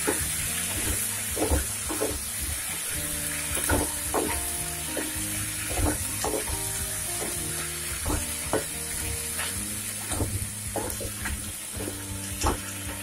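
Wooden spatula stirring cubed cucumber and masala in a non-stick kadai, with irregular knocks and scrapes against the pan over a light sizzle of the vegetables frying in oil.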